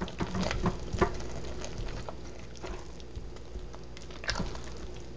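A silicone spatula stirring and scraping thick hot-process soap paste in a crock pot, with lumps of hard oil mixed in. It makes soft, irregular squelches and small clicks against the pot, busiest in the first second or so and again about four seconds in.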